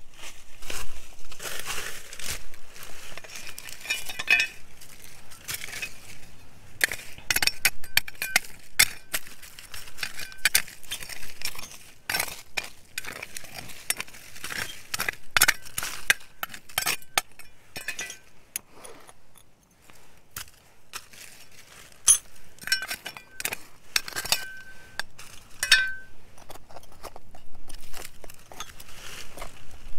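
Small metal hand trowel and pointed steel digging tool scraping and chinking against gravel and stones in dry, stony soil: a busy run of sharp clicks and scrapes with an occasional brief metallic ring. The digging pauses briefly about two-thirds of the way through.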